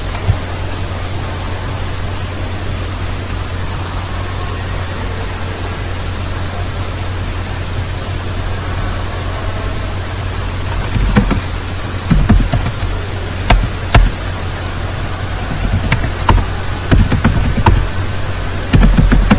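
Steady microphone hiss with a low hum. About halfway through, computer keyboard keys start clicking in short, irregular runs of keystrokes.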